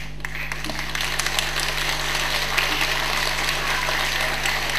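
Audience applauding, many hands clapping at once; it starts suddenly and keeps on steadily.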